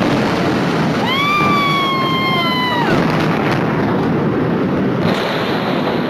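Roar of a huge explosion recorded on a phone, a dense, loud rumble and rush that keeps going for several seconds after the blast. About a second in, a high-pitched wailing tone rises and then slowly sinks for nearly two seconds over the roar.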